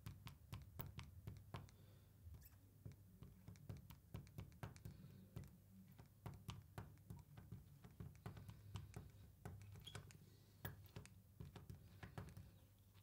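Faint, irregular clicks and taps of a marker tip on a glass lightboard as block letters are written, over a low steady hum.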